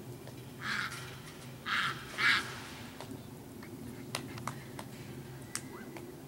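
Domestic ducks quacking: three short, harsh quacks in the first two and a half seconds, the last the loudest, followed by a few faint clicks.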